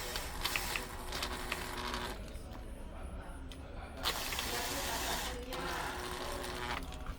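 Small screws being driven back into the smart lock's motor mount with a screwdriver: two stretches of scratchy, grinding turning noise with small clicks, the first in the opening two seconds and the second from about four to five and a half seconds in.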